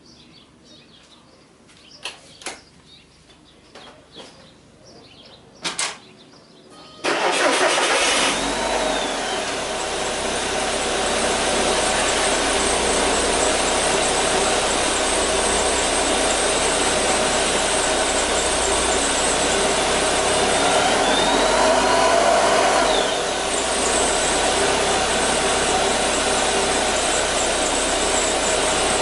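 Supercharged Porsche 968's four-cylinder engine cold-started: after a few sharp clicks, it catches suddenly about seven seconds in and settles into a steady idle.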